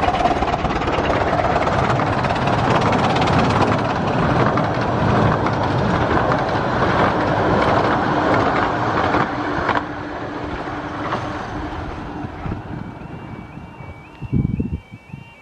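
A 15-inch gauge miniature steam locomotive and its train running past at speed, loud for about ten seconds, then dropping away and fading as it recedes. Near the end background music fades in, with a brief low bump just before.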